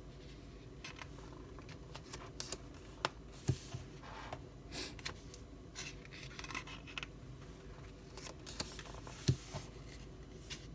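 Glossy photo book pages being turned and handled: soft page rustles with scattered small taps and clicks, the sharpest a few seconds in and again near the end.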